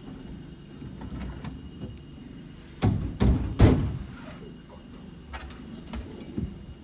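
Metal tool chest drawer running on its slides, with a loud rolling clatter a little before halfway through and light clicks and knocks around it.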